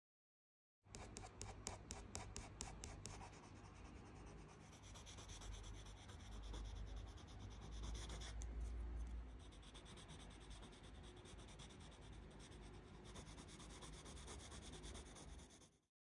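Faint scratching and rubbing of a graphite pencil on paper while shading a drawing. It starts about a second in with quick, short, regular hatching strokes for a couple of seconds, then goes on as steadier scratching and rubbing.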